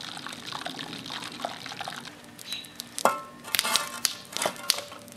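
Wood fire crackling and hissing around a can of bacon grease set in the flames, with a run of sharp pops and crackles in the second half. The can melts through and the hot grease drains into the fire.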